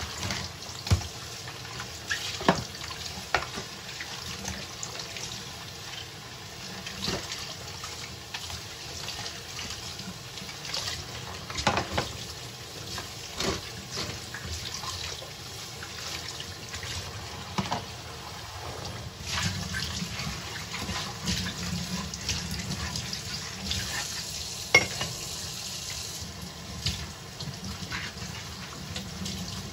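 Dishes being washed by hand in a stainless steel sink: tap water running steadily, with scattered clinks and knocks of plates, bowls and plastic containers being rinsed and set down.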